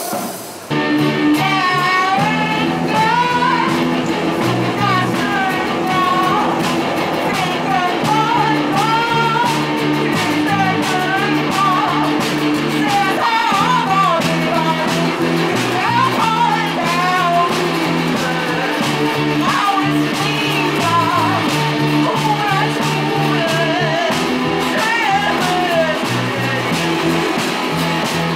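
Street punk band playing about a second in: electric bass repeating a low riff, a small box-bodied guitar, and drums with a cymbal, with a singer's voice wavering over the top.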